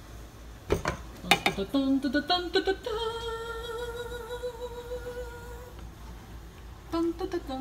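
Sharp clanks of a metal pan lid being lifted, the loudest sounds, followed by a woman humming a few notes and then holding one steady note for about three seconds, with a few more clinks near the end. A dishwasher runs low underneath.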